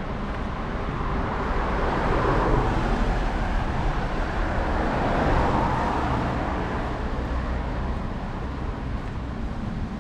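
Road traffic: cars passing on the road beside the pavement, swelling twice, about two and five seconds in, over a steady low rumble.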